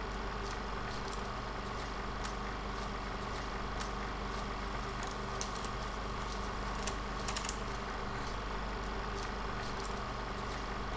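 Steady hum and hiss of room tone, with a few faint clicks about halfway through.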